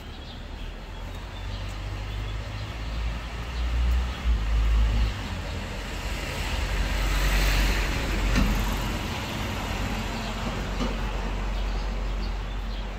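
City street traffic: a motor vehicle passing close by, its low engine rumble and tyre noise swelling to a peak about seven to eight seconds in, then fading.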